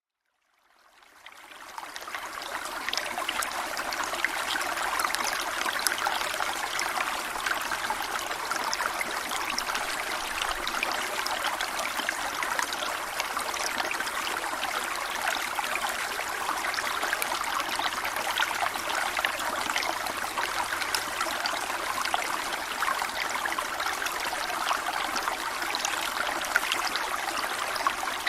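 Waterfall: water splashing and rushing steadily, fading in over the first two seconds.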